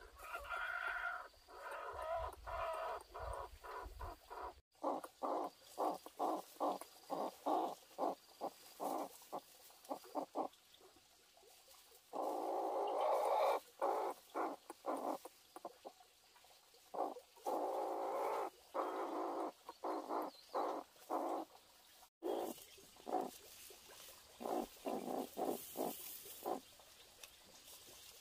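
Chickens clucking: runs of short, quick clucks with a few longer drawn-out calls, broken off abruptly twice.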